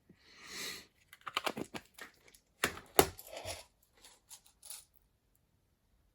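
A box of small metal watch crowns being handled: a brief rustling scrape, then a run of sharp clicks and small rattles of the parts and box. The handling stops about five seconds in.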